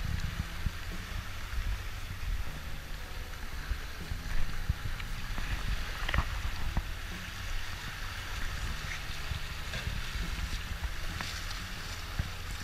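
Wind buffeting the microphone in a steady low rumble, over small waves washing on a sandy shore. A few brief splashes come from feet wading in the shallows, the sharpest about four seconds in.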